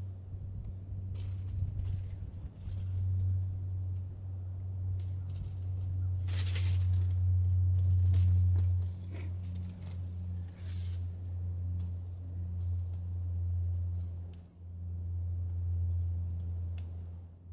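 A steady low hum, broken briefly three times, under scattered gritty rattles and clinks.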